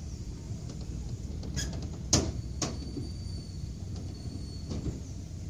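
Children's carousel turning: a steady low rumble from the platform, with a few sharp metallic clacks, the loudest a little after two seconds in.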